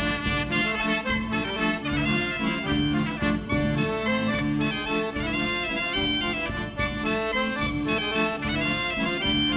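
Instrumental Polish folk dance music with a steady beat and no singing.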